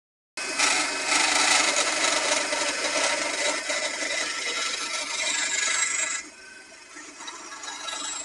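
Draper bandsaw cutting a small workpiece, a loud steady sawing noise; about six seconds in the cut ends and the saw runs on much quieter.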